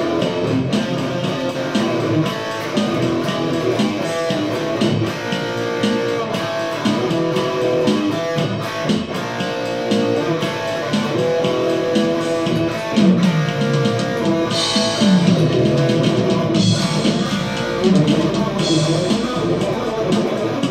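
Amplified electric guitar jam: a run of single notes and chords, with a few notes sliding down in pitch about two thirds of the way through and several bright strummed chords after them.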